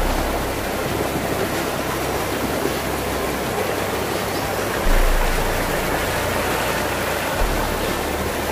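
Steady rushing of a stream, with low wind rumbles on the microphone starting suddenly at the beginning, about five seconds in and again near the end.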